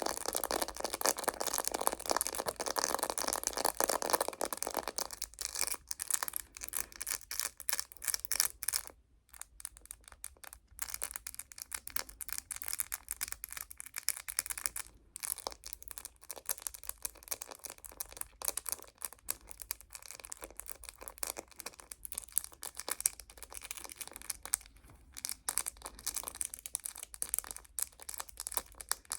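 Rapid tapping and scratching on a phone case, dense and busy for the first few seconds, then lighter and more scattered taps.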